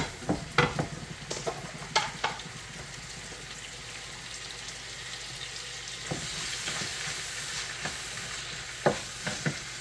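Food frying in a pan with a steady sizzle while a spoon stirs and knocks against the pan. There are several knocks in the first two seconds and a few more near the end.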